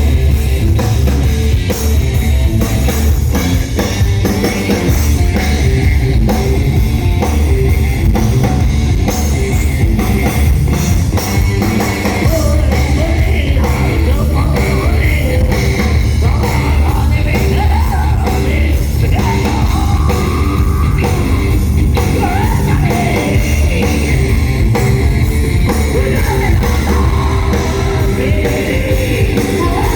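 A rock band playing live and loud: drum kit, electric guitars and heavy bass, with a singer's voice joining about twelve seconds in.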